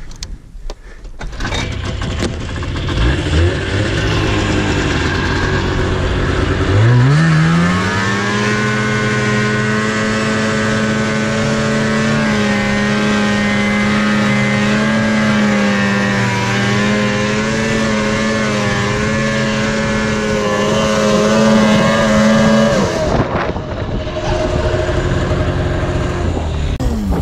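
Yamaha Enticer snowmobile's two-stroke engine running, then revving up hard about a quarter of the way in and held at high revs for about fifteen seconds with slight wavering, before dropping suddenly back to a lower run and falling off at the end.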